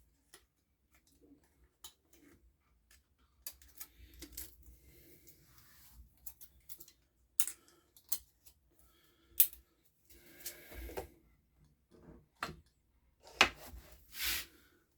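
Scattered light metallic clicks, taps and clinks of small hand tools and feeler gauges being handled on the valve gear of a Makita BHX2500 four-stroke engine, with a few sharper knocks near the middle and end.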